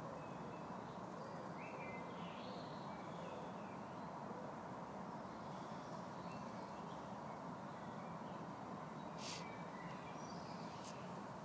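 Woodland ambience: a steady background hiss with faint, scattered bird chirps, and two short sharp sounds near the end.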